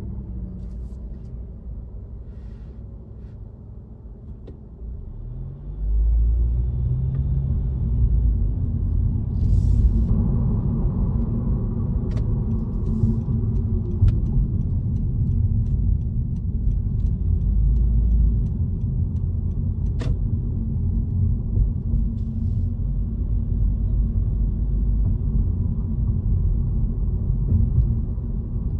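Car engine and road noise heard from inside the moving car: a low rumble, quieter at first, that rises in pitch and grows louder about six seconds in as the car speeds up, then runs on steadily with a few faint clicks.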